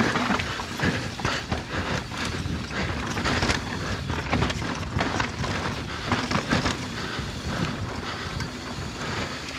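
Mountain bike descending a rough dirt trail, with tyres rumbling over the dirt and a constant clatter of chain and frame rattles and knocks over the bumps.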